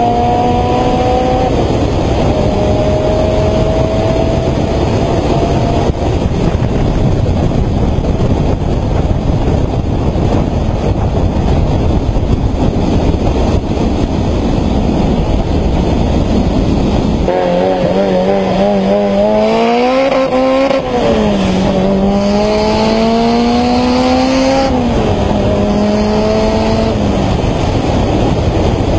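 Car engine pulling hard through the gears, its pitch climbing and dropping at each shift, with heavy wind noise rushing over the microphone through the middle stretch. After about seventeen seconds the revs climb, fall back and climb again through more shifts.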